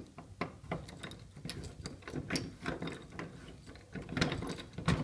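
Lock and handle mechanism of a vending-machine gun safe being worked open: an irregular run of metallic clicks and ratcheting rattles, busiest near the middle and toward the end.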